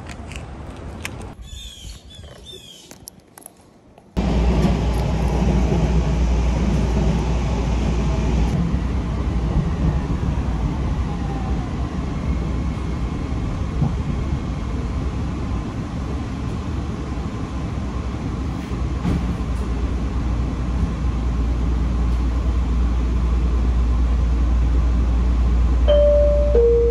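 Steady low rumble inside a moving public transit vehicle, following a few seconds of quieter street sound. Near the end a two-note falling chime sounds.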